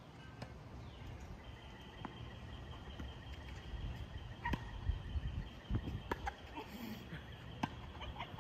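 Tennis rally: faint sharp pops of racket strings hitting the ball, every second or two. A steady high-pitched drone comes in about a second and a half in and holds.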